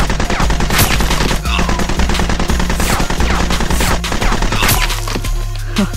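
Rapid automatic gunfire sound effect, shots in quick succession, over background music with a steady bass line.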